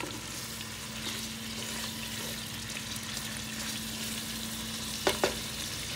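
Beef chunks and chopped onion sizzling as they sear in hot oil in a pot, the stage where the meat browns and seals in its juices. A steady low hum runs underneath, and two quick knocks come about five seconds in.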